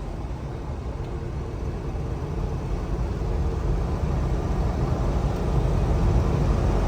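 Cabin noise of a 1995 Chevrolet Caprice cruising: steady engine hum and road rumble that grows gradually louder.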